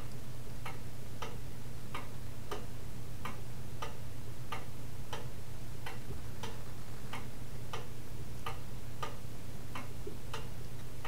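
Steady, evenly paced ticking, about three ticks every two seconds, over a low steady hum.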